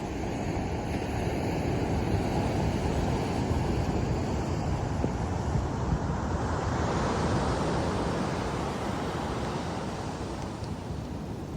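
Ocean surf breaking on a beach: a steady rushing that swells and then eases off.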